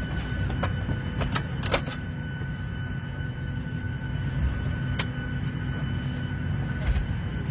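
Airliner cabin ambience: a steady low rumble with a constant hum of tones from the aircraft's systems, broken by a few sharp clicks and knocks, a cluster in the first two seconds and single ones about five and seven seconds in.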